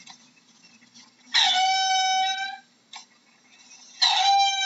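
Mongoose calling: two long, loud calls held on one steady pitch, each lasting about a second and coming a little under three seconds apart, with a brief squeak between them.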